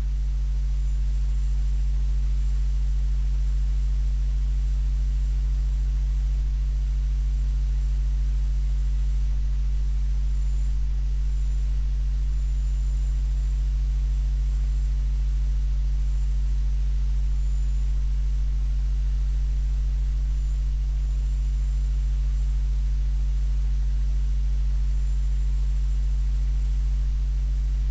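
Steady electrical mains hum: a low, unchanging buzz with evenly spaced overtones, with a faint, slightly wavering high whine above it.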